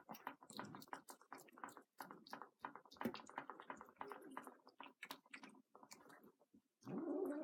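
Cats chewing food, with many quick irregular crunches. Near the end a cat starts a drawn-out meowing noise while eating.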